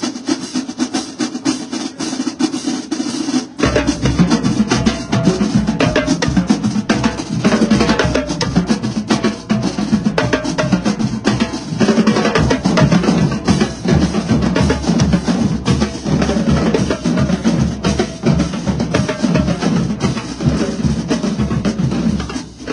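Marching drumline of snare drums, tenor drums and bass drums playing a fast cadence. For the first few seconds only the snares and tenors play, then the bass drums come in and the full line plays on, cutting off near the end.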